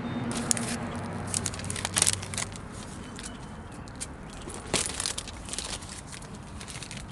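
Shopping cart being pushed over concrete sidewalk and asphalt, its wheels and frame rattling with many irregular clicks and knocks.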